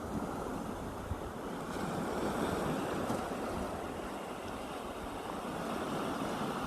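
Calm sea waves washing onto the beach: a steady surf wash that swells about two seconds in, with some wind rumble on the microphone underneath.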